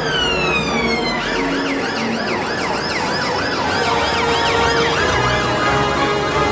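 Emergency-vehicle siren: a long falling wail for about the first second, then switching to a fast, repeated up-and-down yelp.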